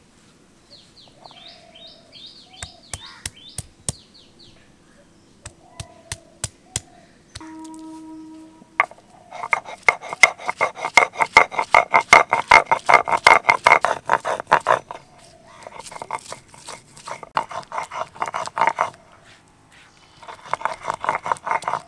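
Stone batta (roller) worked back and forth on a flat stone sil, crushing onion, garlic, ginger and tomato into a paste. Early on there are a few sharp knocks as the pieces are broken up. Then comes fast, rhythmic stone-on-stone grinding in three long runs, the first of them the loudest.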